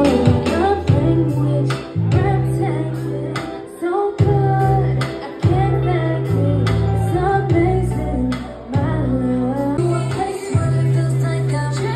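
Live band with a female lead singer: a woman singing a melody into a microphone over a bass line, electric guitar and a steady drum beat.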